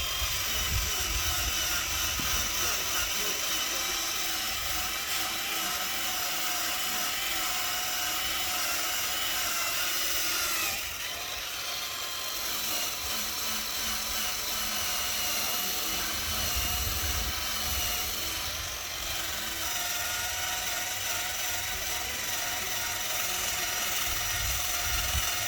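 Electric drill spinning a wire wheel to strip rust off a metal exhaust: a steady motor whine over a harsh scraping hiss, its pitch wavering slightly under load. It dips briefly about eleven seconds in.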